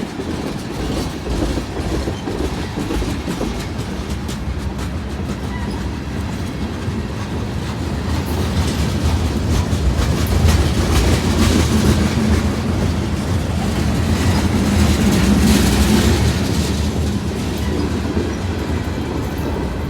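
Freight train boxcars rolling past at close range: a continuous rumble of steel wheels on the rails, growing louder from about eight seconds in and easing off again near the end.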